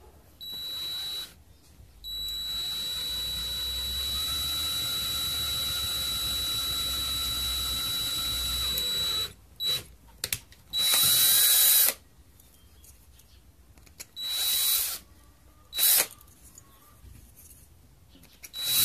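Cordless drill running with a steady whine as a 7/32-inch bit enlarges a pilot hole in the thin metal of a tomato paste can. One long run of about seven seconds, then several shorter, louder bursts.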